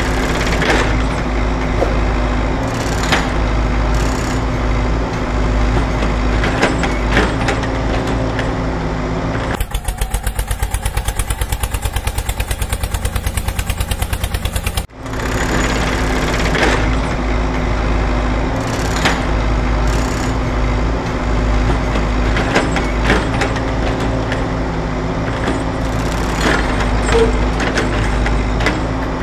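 Steady engine sound of a heavy vehicle running. About ten seconds in it changes for some five seconds to a rapid, even chugging of about eight beats a second, then the steady running returns.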